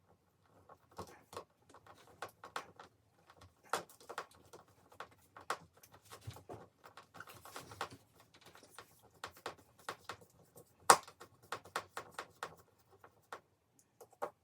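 Irregular clicking and tapping of small hardware being handled and screwed into a mounting box, with one sharper knock about eleven seconds in.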